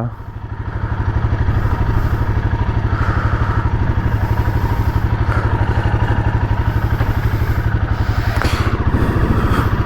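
Royal Enfield Himalayan 450's single-cylinder engine running steadily, an even pulsing exhaust beat.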